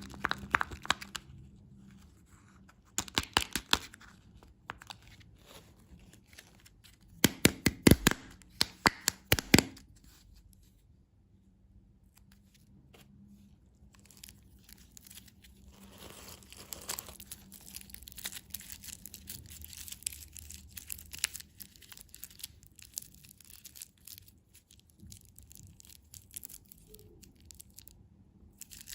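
Candy packaging being unwrapped by hand: plastic wrappers tearing and crinkling. Short bursts of sharp crackles come in the first ten seconds, the loudest about eight seconds in, followed by quieter, steady rustling.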